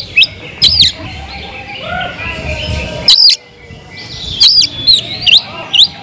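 Oriental magpie-robin singing: a string of loud, sharp whistled notes that sweep steeply up and down in pitch, about six of them with short gaps, over softer twittering behind.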